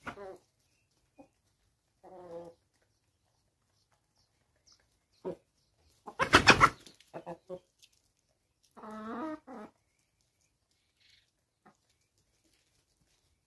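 Free-range chickens giving a few short clucking calls, scattered with long quiet gaps, and a loud harsh sound about six seconds in.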